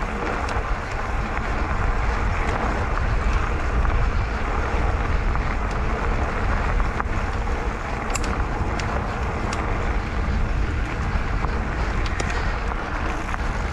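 Wind rushing over the camera microphone and tyres rolling on a dirt trail as a mountain bike is ridden, with a few sharp clicks about eight and twelve seconds in.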